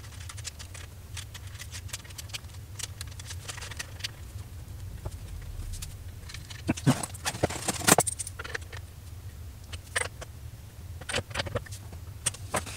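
Small metal hardware clicking and clinking as nuts, bolts and ring terminals are handled and fitted by hand onto a battery's terminal connections, with a busier run of clinks about seven to eight seconds in. A steady low hum runs underneath.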